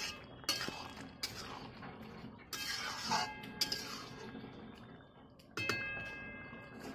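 A steel ladle knocking and scraping against a large steel kadai while a curry is stirred. There are about six sharp clinks, each leaving the pot ringing, the longest ring coming near the end.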